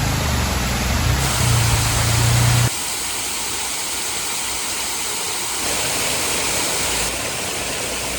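A Suzuki Jimny JA11's small engine runs low under the rush of falling water for the first couple of seconds. After an abrupt cut, only the steady rush of the waterfall and stream remains.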